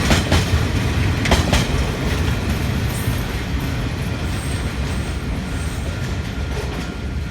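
Train hauled by a Taiwan Railway R23 diesel locomotive rolling past: a steady low rumble of engine and wheels, with a few sharp rail-joint clicks in the first second and a half, slowly getting quieter.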